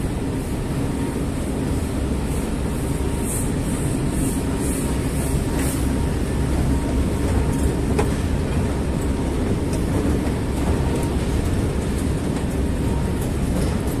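Escalator running: a steady low mechanical rumble with a faint hum, and a few light clicks partway through.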